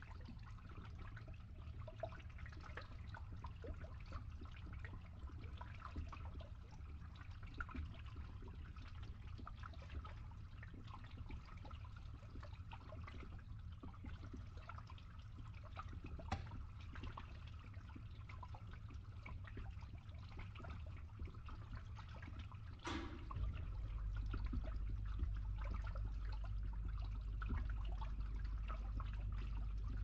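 Water draining through a pipe with many small drips and ticks over a steady low pump hum. A little over two-thirds of the way through there is one sharp click, and the low hum then steps up louder.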